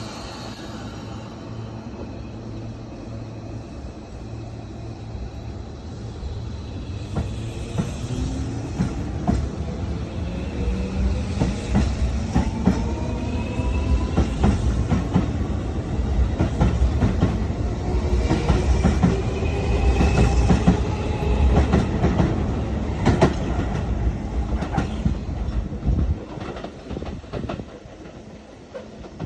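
Keio Line local electric train pulling away from the station, its motors giving rising whines as it gathers speed. The wheels clack over the rail joints as it goes. The sound grows louder as the train passes, then drops away near the end as it recedes.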